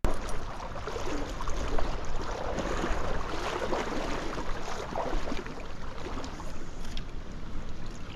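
Small stream running through a riffle: a steady rush of water dotted with small splashes and ticks.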